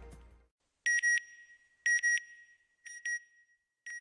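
The music tail dies out in the first half-second. Then a closing logo sound effect starts: short, high electronic double beeps, one pair about every second, each pair fainter than the last.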